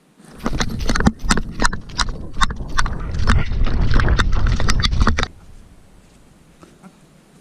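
A Border Collie running through the forest with a camera strapped to its chest: quick paw footfalls and knocks of the camera mount over a low rumble, for about five seconds. The noise stops abruptly as the dog halts.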